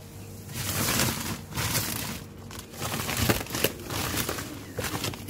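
Woven plastic feed sack of chick starter crumble crinkling and rustling in a series of bursts as it is pulled open and handled inside a plastic bin.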